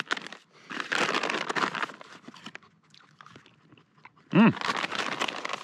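Plastic packet of beef jerky crinkling and crackling as it is opened and handled, in two spells with a short pause between. A brief pitched vocal sound rises and falls just before the second spell.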